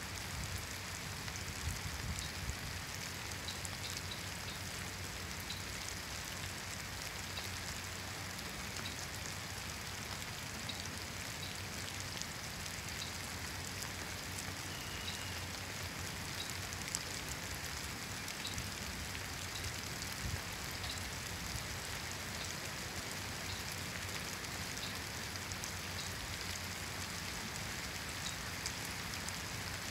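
Steady spring rain falling on tree foliage, a continuous patter with scattered single drops ticking on the leaves.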